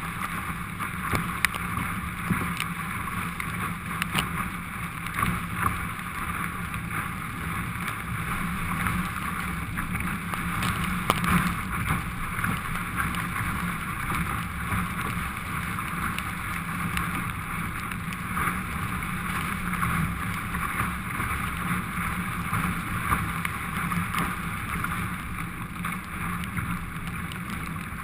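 Steady rushing of water and wind around an ocean ski being paddled through heavy swell in pouring rain, with many small ticks scattered through it.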